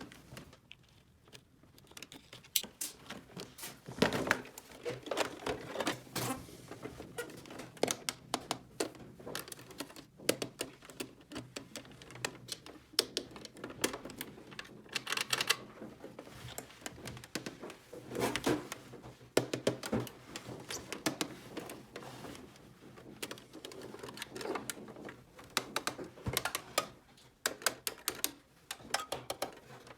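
Irregular clicks and taps of small plastic toy kitchen pieces being handled, snapped and set down, coming in quick clusters with short pauses.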